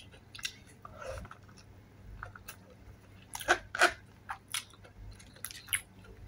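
Close-miked chewing of a mouthful of fried chili spring roll and rice, with scattered wet mouth clicks and crunches; the two loudest crunches come close together about three and a half seconds in.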